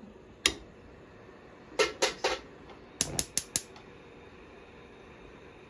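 Sharp knocks of kitchen utensils on hard surfaces: one on its own, then a quick run of three, then a quick run of four, over a faint steady hum.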